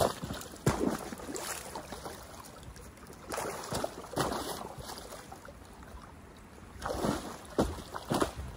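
Wading through a shallow ice-covered pond in neoprene waders: water sloshing around the legs as broken ice plates knock and crack against each other. Sharp knocks come in the first second, again around the middle, and in a quick cluster near the end.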